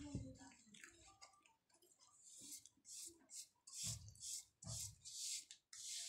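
Faint, dry, gritty scraping of slate under a hand: short rubbing strokes about two a second, starting a couple of seconds in, with two dull knocks in the middle.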